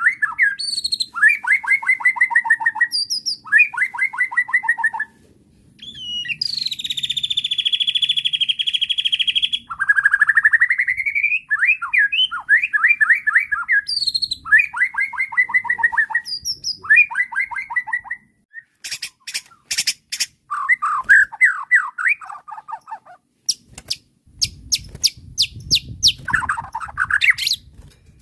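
White-rumped shama (murai batu) singing a varied song: fast repeated trilled phrases, a long buzzy rattle about six seconds in, rising whistled sweeps, and sharp clicking notes near the end. A low rumble runs under the last few seconds.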